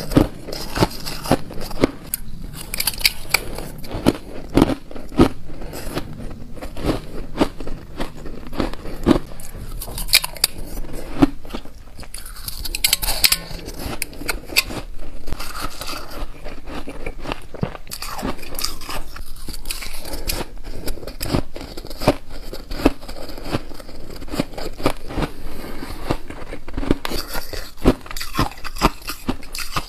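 Ice being bitten and chewed close to the microphone: shaved and refrozen ice crunching between the teeth in many quick, irregular crunches.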